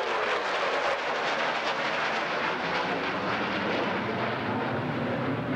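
Jet noise from a Rockwell B-1B Lancer's four turbofan engines as the bomber flies a low banking pass: a steady, loud roar with a crackling edge, its low end growing heavier in the second half.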